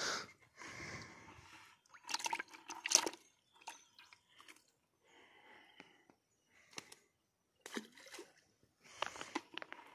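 Water sloshing and dripping in a bucket as a hand grabs catfish out of it, with splashes in the pond as the fish are tossed in. The sounds come in a few short bursts separated by quiet gaps.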